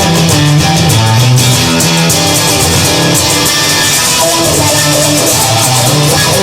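Instrumental rock music: electric guitar and bass playing a steady groove between sung verses.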